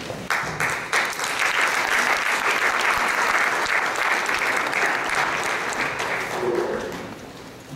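Audience applauding: a few claps that swell within about a second into steady applause, which fades away near the end.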